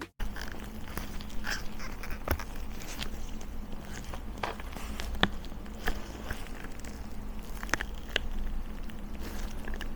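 Scattered light clicks and taps of small objects being handled on a desk, at irregular intervals, over a faint steady hum.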